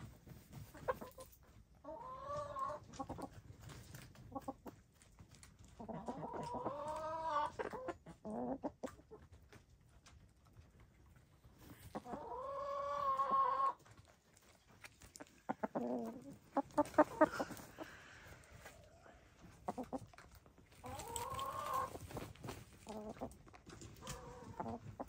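Domestic hens dust bathing, giving about five drawn-out, wavering calls a few seconds apart, with short scratchy clicks of dirt being kicked and flicked between the calls.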